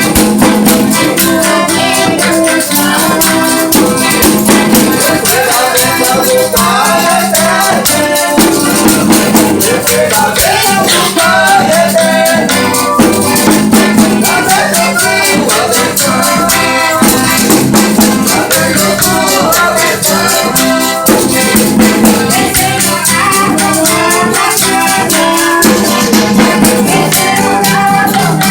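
Folia devotional music: voices singing a melody over a shaker rattling a fast, steady beat.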